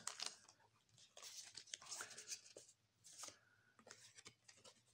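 Faint rustles and light clicks of Magic: The Gathering cards being handled and slid through the hands, with a few short soft swishes.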